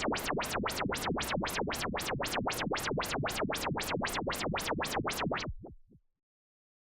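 Noise sound effect from Ableton's Analog software synth: white noise pulsed through a sweeping filter, making evenly repeated whooshes about three to four times a second. The whooshes shrink and fade out about six seconds in.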